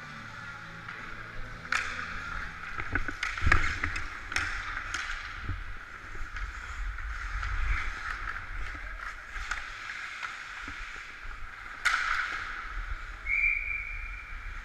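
Ice skate blades scraping and carving on rink ice as a hockey player skates, with low wind rumble on the microphone. Sharp clacks of sticks and puck come about 2 s in, a few between 3.5 and 4.5 s, and one about 12 s in, and a short high steady tone sounds near the end.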